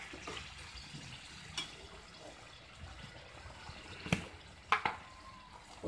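Watery chicken curry simmering in an aluminium pan over a gas flame, with three sharp clinks of a steel spoon against the pan, the loudest two near the end.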